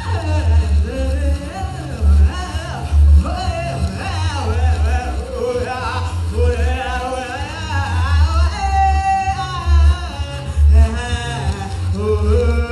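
Woman singing wordlessly into a microphone, her voice sliding and swooping up and down in pitch with a held higher note about two-thirds of the way through, over a deep pulsing electronic bass from her live setup.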